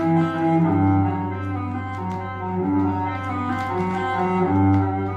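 Classical music with low bowed strings playing from a vinyl LP on a Rega Planar 2 turntable through a small speaker, with scattered clicks of surface noise. The playback is quite noisy, which the owner puts down to groove grime on the record.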